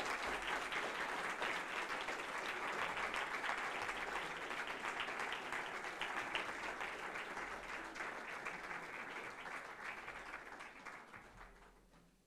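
Audience applauding, steady for most of the time and dying away over the last couple of seconds.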